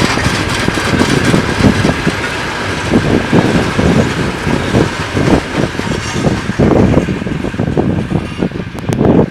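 Freight train wagons rolling past, wheels clattering over the rails, with irregular gusts of wind buffeting the microphone.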